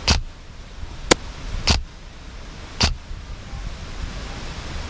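Airsoft DMR (designated marksman rifle) firing three sharp shots spread over about three seconds, with a single thinner click between the first two. Under it runs a steady low rumble of wind on the microphone.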